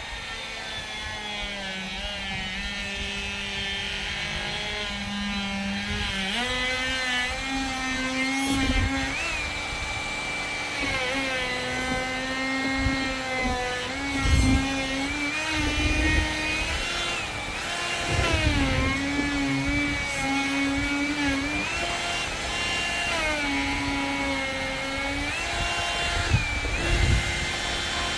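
Die grinder fitted with an eye-cutting bit running and cutting eyes into wood, a steady whine whose pitch dips and recovers several times as the bit bites in and eases off.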